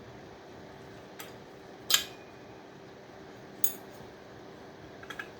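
Small pieces of scrap metal from a dismantled power board clinking as they are handled, four short sharp clinks with the loudest about two seconds in, over a steady faint hum.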